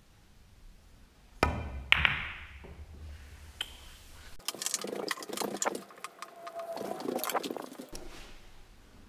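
A 9-ball break shot: the cue tip strikes the cue ball, and half a second later the cue ball smashes into the rack in a loud clack of pool balls that rings briefly. A scattered click follows, then from about four and a half seconds in a thinner run of rapid clicks and knocks with a short steady tone.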